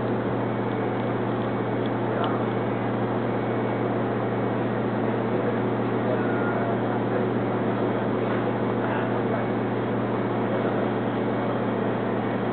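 Steady drone of a cruise ship's machinery heard on deck: a strong, even low hum with a constant hiss above it.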